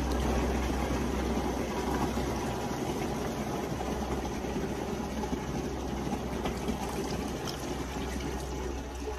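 Water poured from a 5-gallon bucket splashing steadily onto a fine mesh screen in a plastic drum lid, easing off slightly toward the end. A steady low hum runs underneath.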